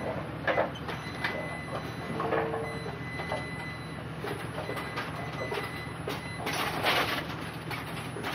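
Goods being carried and moved about: scattered knocks and clatters over a steady low rumble, busiest about two-thirds of the way through.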